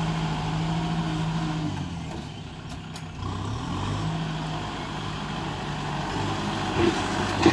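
Kubota farm tractor's diesel engine running while it pushes soil with its rear blade. The engine note drops away about two seconds in and comes back up a second later, and there are a couple of short knocks near the end.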